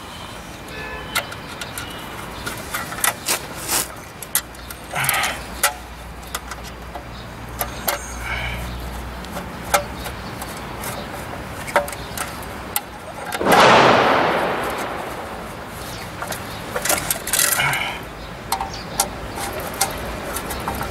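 Scattered light clicks and knocks of a screwdriver and a metal cover plate as a four-screw baffle plate is fitted to the base of a semi-automatic eyelet machine. About two-thirds of the way through, a loud rush of noise rises sharply and fades over a second or two.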